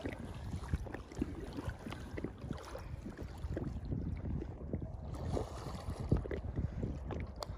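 Wind rumbling on the microphone, with water lapping and splashing in small irregular slaps against a belly boat (float tube).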